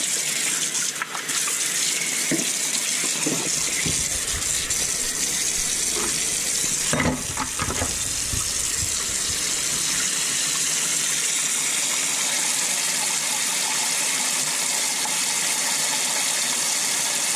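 Kitchen tap running a steady stream into a sink with standing water, pouring over salted cod being rinsed. A few short splashes and knocks from hands handling the fish come in the first half.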